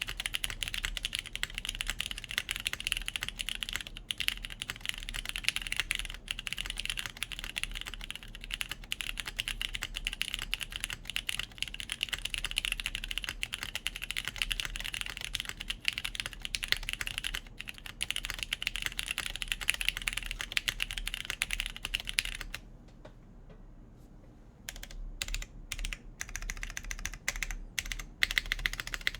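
Continuous fast typing on a JJW Cloudline V2 mechanical keyboard, top-mounted, with lubed Cherry MX Brown switches on a polypropylene plate and GMK keycaps. About three quarters of the way through the typing stops for about two seconds, then resumes as slower, separate keystrokes.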